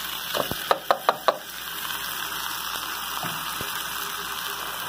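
Washed rice emptied from a plastic bowl into a pot of pumpkin frying in garlic and oil: about six sharp knocks in the first second and a half as the bowl taps the pot, over a steady sizzle.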